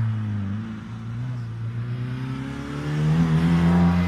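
Historic rally car's engine accelerating out of a hairpin, the pitch dropping briefly about a second in and then climbing steadily, growing louder near the end as the car comes up the road.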